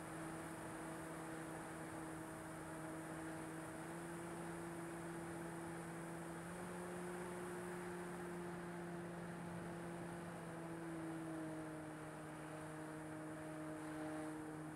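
RC Corsair model plane's motor and propeller heard from on board in flight: a steady hum that rises a little in pitch about six seconds in and drops back about eleven seconds in, over a rush of air.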